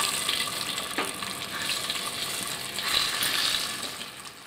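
Peeled boiled eggs sizzling as they go into hot oil in an open pressure cooker, with a light knock about a second in; the sizzle fades near the end.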